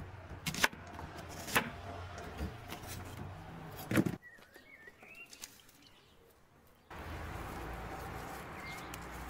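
Knife cutting an onion on a wooden board, with a few sharp knocks of the blade on the wood, the loudest about four seconds in. Birds chirp faintly after that, and about seven seconds in a steady outdoor background comes in abruptly.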